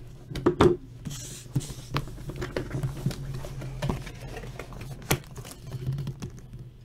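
Cardboard box being handled and opened by hand: irregular knocks, taps and rubbing of the card, loudest in a short clatter about half a second in and a sharp knock about five seconds in.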